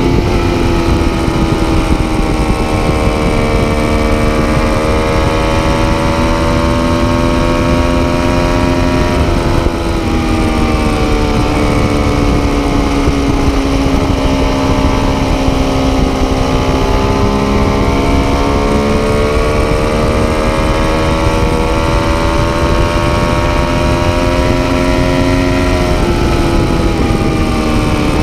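Triumph Daytona 675's three-cylinder engine through an Arrow exhaust, running under way with its pitch drifting slowly up and down and dipping briefly about ten seconds in and again near the end. Steady wind rush on the microphone underneath.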